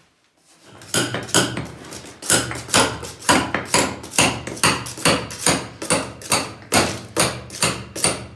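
Hammer striking in a steady run of about twenty blows, roughly three a second, starting about a second in, as a stuck sewer pipe is worked loose.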